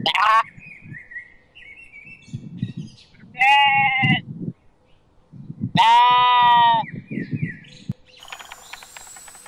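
Lamb bleating: a short call at the very start, then two longer, wavering bleats about three and a half and six seconds in, the second the loudest.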